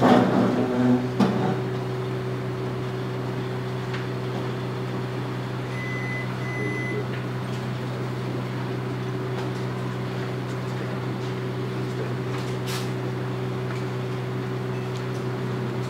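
A steady low electrical hum, with a brief clatter at the start, two short high beeps about six seconds in and a single click later on.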